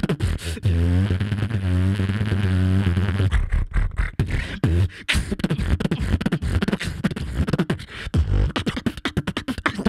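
Human beatboxing into a handheld microphone: a long, wavering bass tone for the first few seconds, then a fast run of drum-like kick, snare and click sounds.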